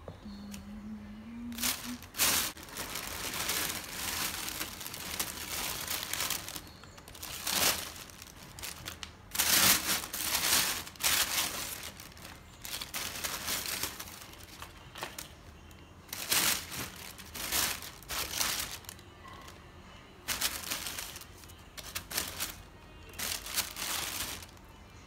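Thin plastic carry bag rustling and crinkling in uneven bursts as hands rummage through vegetables inside it.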